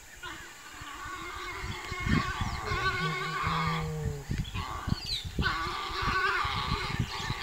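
Two warthogs fighting: wavering animal calls in two stretches, with many low thumps throughout.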